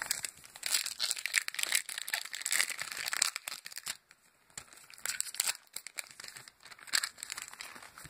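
Foil wrapper of a Topps Chrome trading-card pack being torn open and crinkled: a run of crackly crinkling for about three and a half seconds, a brief lull, then more crinkling.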